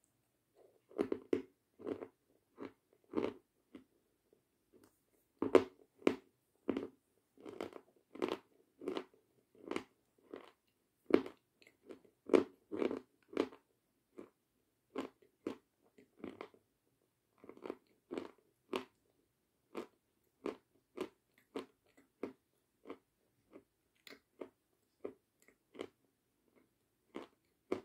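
Close-up chewing of Kramatorsk chalk, a run of dry, crisp crunches about one to two a second as the chalk is bitten and ground between the teeth. There is a brief lull about halfway, and the crunches grow lighter near the end.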